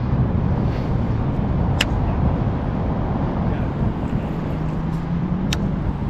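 Steady low rumble of outdoor urban background noise, traffic-like, with wind on the microphone. Two sharp clicks come about two seconds in and again near the end.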